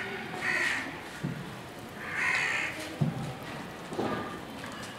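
A crow cawing twice, harsh calls about half a second in and again around two seconds in, the second one longer. A couple of soft low thuds come in between.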